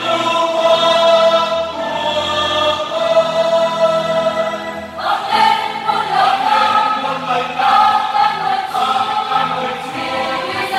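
Large mixed choir of women's and men's voices singing a Catholic hymn in harmony, holding long chords, with a new, fuller phrase starting about five seconds in.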